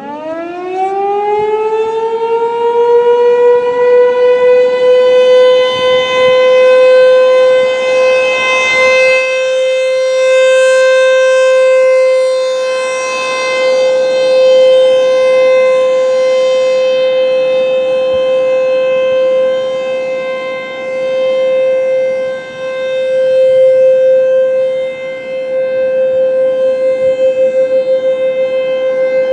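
ASC T-128 electromechanical siren winding up in a rising pitch over the first few seconds, then holding a steady alert tone, its loudness slowly swelling and fading. This is the steady 'alert' signal of a full siren test.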